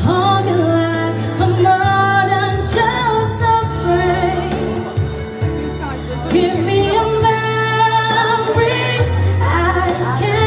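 A busker singing into a microphone, amplified through a street speaker, over a backing track with a steady bass line. The voice glides and holds notes in sung phrases.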